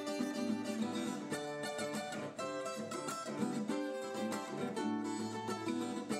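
Background music led by plucked guitar, playing steadily.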